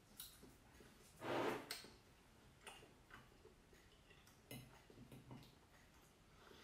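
Quiet close-up eating sounds: chewing with a few light clicks of a metal fork against a ceramic salad bowl, clustered about halfway through, and one louder noisy half-second sound about a second and a half in.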